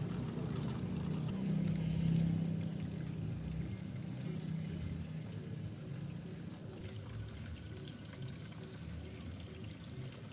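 Background music with low held notes, a short higher note repeating in the second half.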